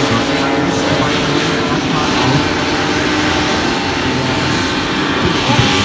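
Several Formula 1 class racing hovercraft running at speed, their engines and thrust propellers making a steady drone whose pitch shifts a little as the craft move.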